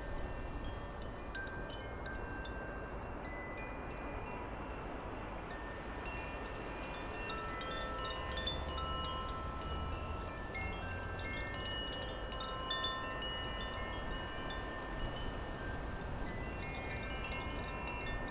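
Wind chimes ringing continuously in the breeze, many overlapping clear tones at different pitches, over a low rumble of wind on the microphone.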